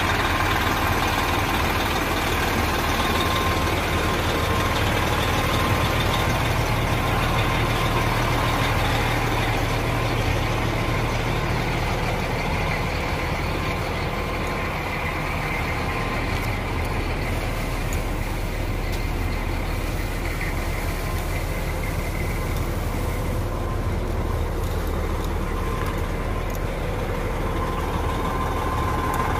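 Heavy diesel fire truck engine idling steadily, a low, even rumble with a faint steady whine over it.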